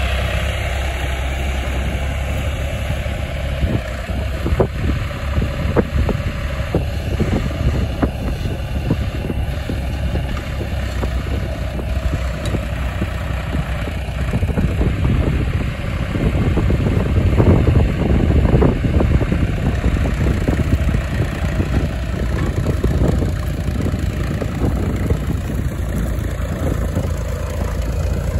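John Deere 1130 tractor's three-cylinder diesel engine running steadily under load as it pulls a mounted plough through the soil.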